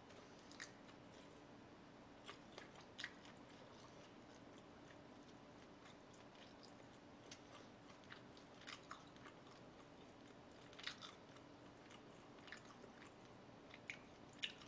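Faint close-up chewing, with scattered short wet mouth clicks and smacks.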